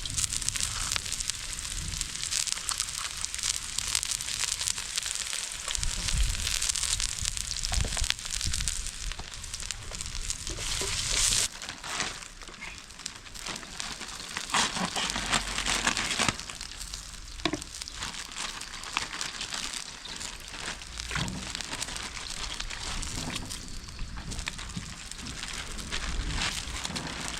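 Oil sizzling in a cooking pot as garlic, ginger and cloves fry, with scattered crackles and clicks. The sizzle drops in level about eleven seconds in.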